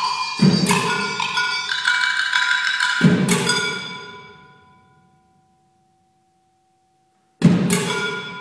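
Solo percussion on struck metal objects, ringing with several clear pitches, with a deep drum thud under some strokes. A quick run of strikes ends with one loud hit whose ringing dies away to silence. About seven seconds in, two more loud strikes come close together and ring on.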